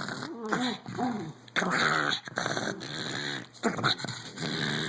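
Elderly pug growling in a run of long, rough growls, about a second each, while fighting, with short whiny yelps in the first second.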